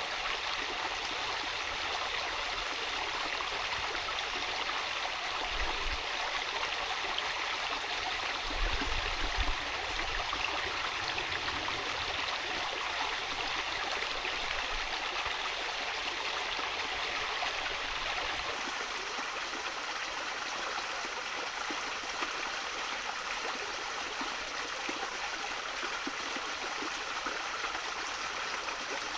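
A shallow brook running over stones and small riffles, a steady, even rush of water. A brief low rumble comes twice in the first ten seconds.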